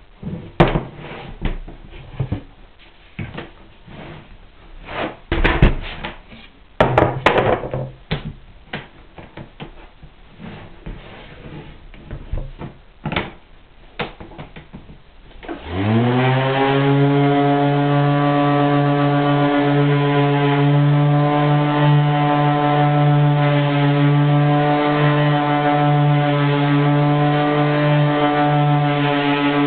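Wooden building blocks knocking and clattering in their tray as they are lifted, tipped and pressed into place. About 15 seconds in, a random orbital sander fitted with a felt buffing pad starts, spins up with a rising whine, and runs steadily buffing the oiled blocks.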